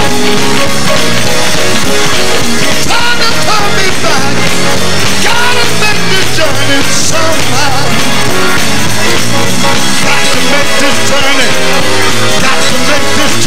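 Gospel choir singing with a full band, loud and continuous, as congregational praise music in a church.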